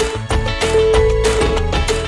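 Background music with a steady, quick beat, a bass line and a long held melody note.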